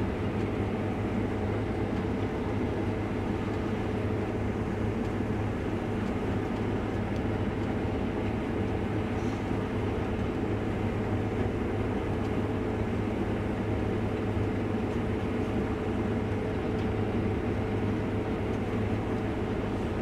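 Combine harvester running steadily as it drives through the field: a constant, even engine and machinery drone.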